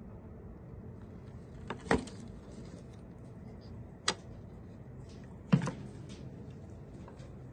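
Three sharp knocks and rattles from a hand handling a wooden parakeet nest box and its wire-mesh cage, over a low steady hum.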